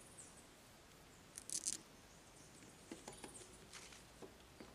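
Faint handling sounds from working a thin bamboo fishing rod and its line by hand: a brief rustling scrape about a second and a half in, then a scatter of light clicks and taps.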